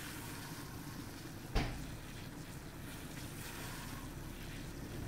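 Steady hiss and low rumble of crabs steaming in a lidded steamer pot on the stove, with a single sharp knock about a second and a half in.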